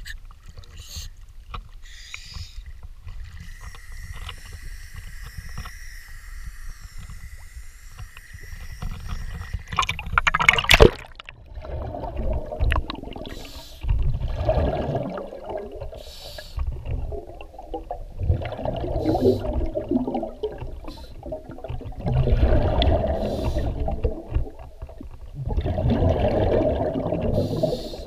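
Scuba regulator breathing underwater: exhaled bubbles burble out in bursts every few seconds, with quieter gaps between breaths. About ten seconds in, a loud splash as the camera goes under; before that, low water sloshing at the surface.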